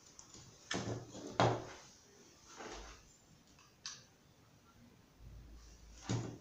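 Hands handling non-woven fabric and a hot glue gun on a tabletop: a few dull thumps and rustles, the loudest about a second and a half in, and a short sharp click about four seconds in.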